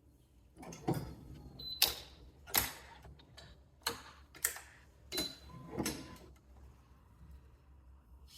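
Racquet stringing handling sounds: a series of about seven sharp clicks and short swishes over about five seconds, then quiet.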